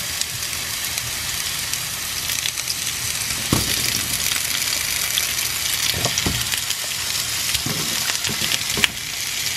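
Onion and carrot frying in hot oil in a frying pan, a steady sizzle as they lightly brown. A few short knocks break in midway and near the end.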